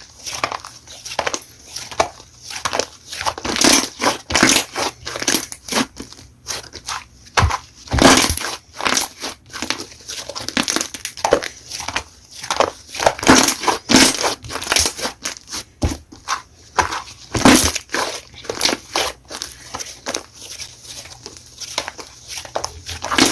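Slime being squeezed and pressed by hand, giving dense irregular crackling clicks and pops, with a few louder clusters of crackles.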